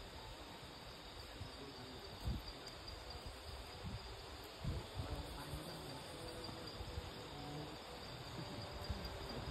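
Steady chorus of insects, such as crickets, chirring in the forest, with a few low thumps about two and five seconds in.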